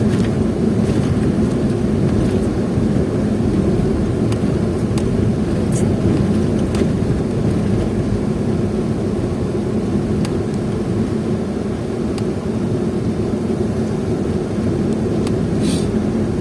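Steady engine drone and road noise of a moving road vehicle, with a few faint ticks and a brief hiss near the end.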